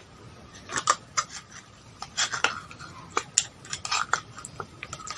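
Irregular clicks, taps and short scrapes of utensils and containers being handled at the table, in close ASMR miking.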